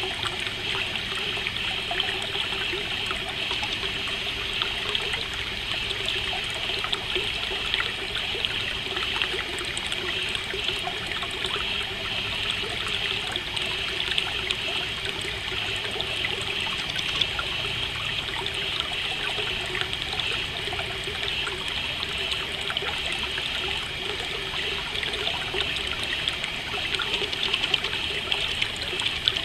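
Stream water trickling steadily over stones, an even babbling with no pauses.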